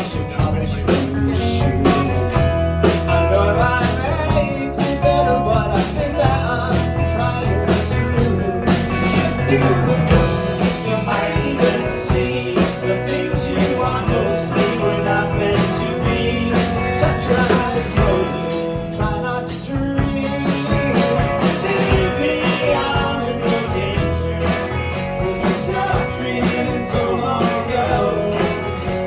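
A rock band playing a song live, with guitar and drums.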